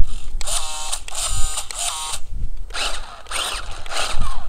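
Electric drive motor and gears of a 4x4 RC car whirring in several short bursts as the throttle is blipped, the whine rising and falling in pitch.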